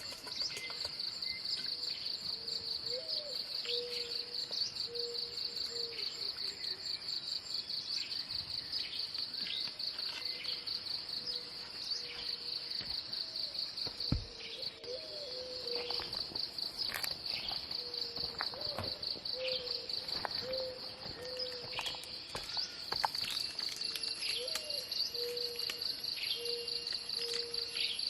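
Forest insects trilling in a steady, high, fine-pulsed chorus, with short bird chirps now and then and a low call repeated in short runs. There is a single sharp click about halfway.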